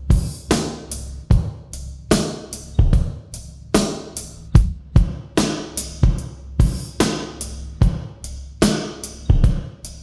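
Drum kit groove of kick, snare and hi-hat played through a room reverb, each hit followed by a fading reverberant tail.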